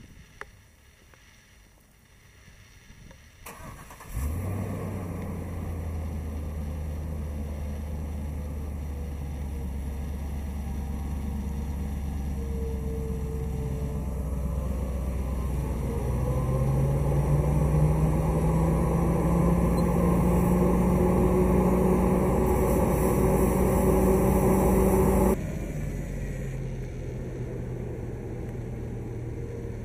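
2013 NiteHawk Raptor street sweeper's engine starting about four seconds in and then running steadily. From about sixteen seconds its pitch climbs and it grows louder as the machinery spins up, then about twenty-five seconds in it drops abruptly to a lower steady hum.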